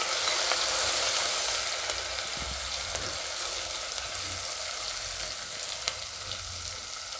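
Crushed ginger, green chilli and garlic sizzling in hot oil in a pressure cooker pot, stirred with a silicone spatula, with faint scattered ticks. The hiss is steady and eases off slightly over the seconds.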